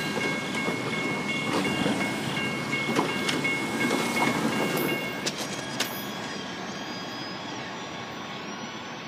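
A freight train's cars rolling past, wheels clacking over the rail joints, with a steady high ringing tone over it. About five seconds in the last car clears, the tone stops and the sound falls away to a quieter rumble.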